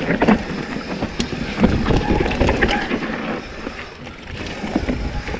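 Mountain bike descending a rough downhill trail: tyres rumbling over dirt and rocks, with the frame and chain rattling and sharp knocks from impacts. It gets louder and busier in the middle, on a rougher section.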